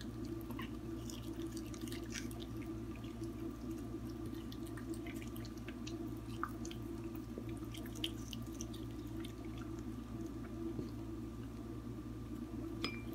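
A corgi puppy licking and mouthing at food, scattered small wet clicks and smacks over a steady low hum.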